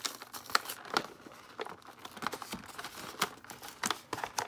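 Clear plastic packaging crinkling and crackling as hands pull and work it off a cardboard box, in irregular sharp crackles.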